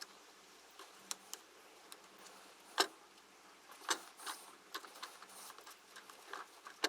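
Faint, scattered clicks and small knocks, the sharpest about three seconds in and another just before four seconds.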